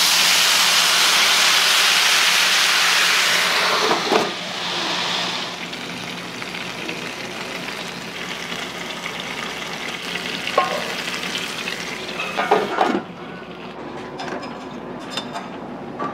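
Water ladled onto a hot flat-top gyoza griddle hisses loudly into steam for about four seconds, then settles to a steady sizzle of frying dumplings. A few metal knocks come later, and the sizzle drops quieter near the end.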